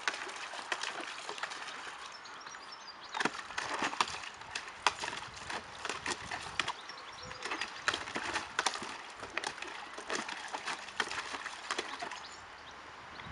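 A puppy lapping and splashing water in a plastic basin: a quick, irregular run of wet clicks and small knocks.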